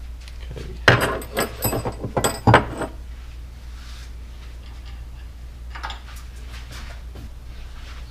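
Metal clinks and knocks of tools and motorcycle parts being handled during handlebar riser removal: a two-second run of clatter starting about a second in, then a few faint knocks later, over a low steady hum.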